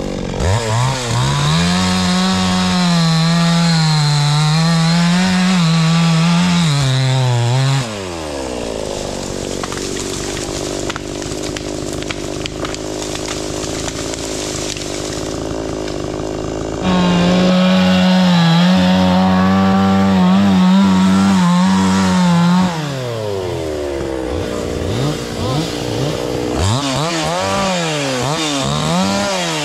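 Two-stroke chainsaw cutting wood at full throttle, its high engine note wavering under load. It drops to idle about eight seconds in, runs flat out again for about five seconds, then idles with a few short revs near the end.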